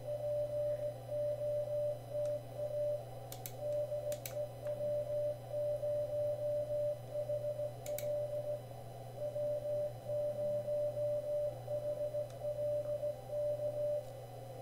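Morse code (CW) on an Icom IC-7610 transceiver: a single steady tone keyed on and off in dots and dashes, stopping near the end, over a low steady hum.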